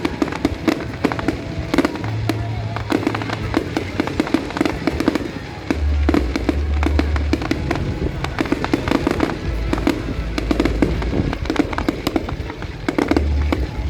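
Fireworks display going off continuously, a dense run of rapid bangs and crackles. Music with long, held bass notes plays loudly under it.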